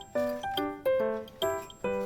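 Background music: a melody of short, evenly paced pitched notes with a light click on each note.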